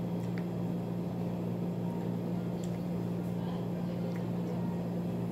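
Steady low electrical hum from running appliances such as refrigerators or air conditioning, with a few faint light clicks of chopsticks against a rice bowl.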